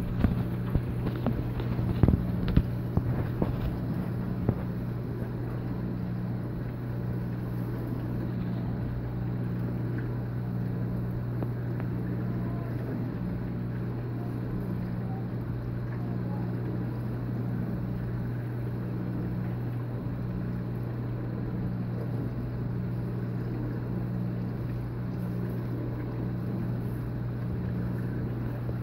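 Aquarium pump humming steadily over a low rush of circulating water, with a second, higher hum that comes and goes about once a second. A few light knocks in the first few seconds.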